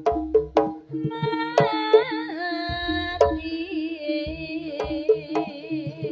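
Live jaranan gamelan music: drum strokes at about three a second over a steady held tone, with a long sliding, wavering melody line entering about a second in.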